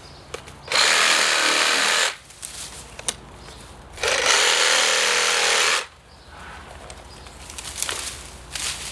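Reciprocating saw with a 9-inch Diablo pruning blade cutting through tree branches in two short runs, each about a second and a half, with light rustling and clicks of the branches between cuts.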